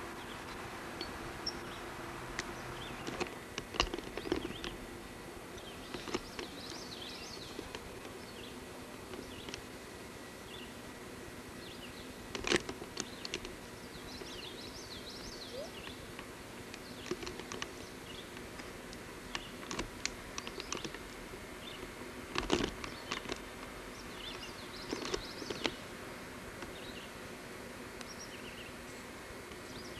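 Outdoor ambience: birds chirp now and then over a steady hum and hiss, broken by a few sharp knocks.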